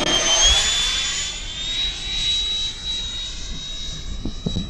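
Freewing F-15's 90 mm nine-blade electric ducted fan throttled up: a high whine that rises in pitch over about the first two seconds and then holds steady at high power, with wind rumbling on the microphone.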